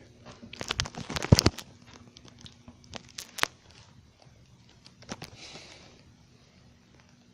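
Handling noises: a scatter of sharp clicks and knocks, the loudest about a second in, with a soft rustle around five and a half seconds.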